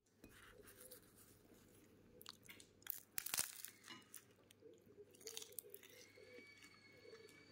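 Crisp food crunching in a run of irregular crackles, loudest about three seconds in.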